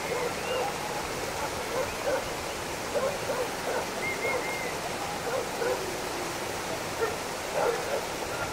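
Fast mountain river rushing over stones in a steady wash, with short calls breaking in over it every second or so, including a quick run of three higher chirps about four seconds in.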